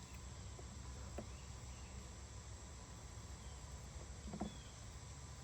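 Low, steady hum of honeybees around an opened hive, with a couple of faint knocks from frames being handled.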